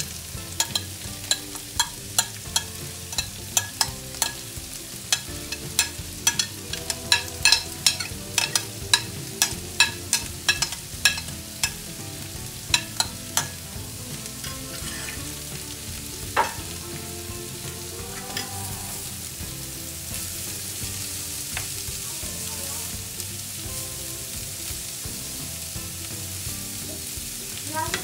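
Shredded cabbage and carrot frying in oil in a pan. For roughly the first half there is a run of sharp clicks and taps, two or three a second, while the vegetables are tipped in from a plate. After that a steady sizzle builds, with a metal spoon stirring near the end.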